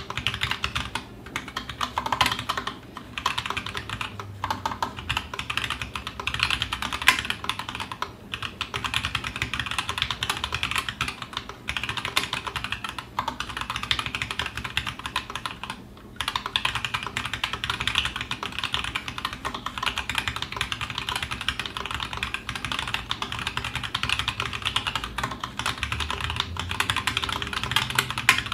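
Continuous fast typing on a TGR Alice custom mechanical keyboard with stock, unlubed 78 g Zealio V2 tactile switches and GMK doubleshot ABS keycaps. It is a dense run of crisp key clacks, broken by brief pauses a few times, with the occasional deeper spacebar hit.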